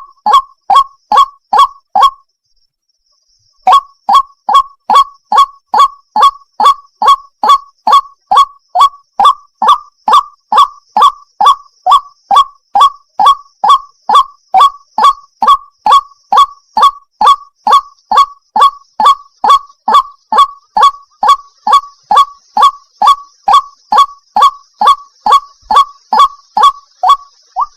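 White-breasted waterhen (ruak-ruak) calling over and over: short, hoarse notes at about two a second, with a pause of about a second and a half near the start. The uploader labels it a female calling a male.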